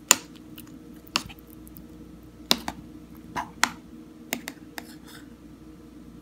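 Metal spoon clinking against a bowl of noodle soup while chili paste is stirred in: about eight short, sharp clicks at irregular intervals, the first one loudest.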